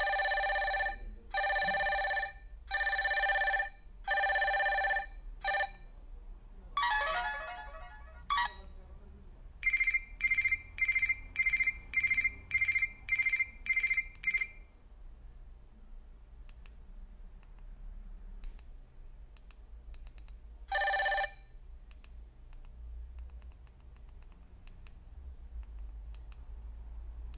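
Built-in ringtones of a ZTE keypad phone playing as previews through its small speaker while the ringtone list is scrolled. First comes a ring repeated four times about a second apart, then a short warbling tone, then a fast electronic beep pattern at about two beeps a second, each cut off when the next tone is selected. One more brief ring sounds about three-quarters of the way through, followed by faint key clicks.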